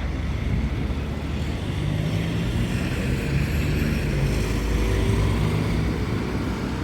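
Electric tram running past, a low rumble with a steady motor hum that grows a little louder about two seconds in.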